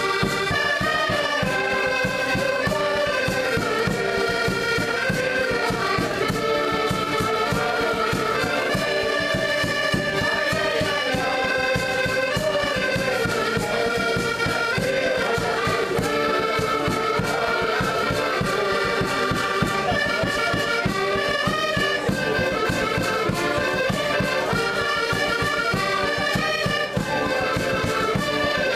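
A group of button accordions, Portuguese concertinas, playing a traditional folk tune together, with a bass drum beating time underneath.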